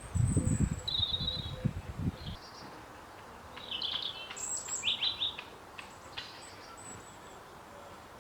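Small garden birds chirping, a scattering of short high calls over the first seven seconds or so. Low muffled bumps run through the first two seconds and are the loudest part.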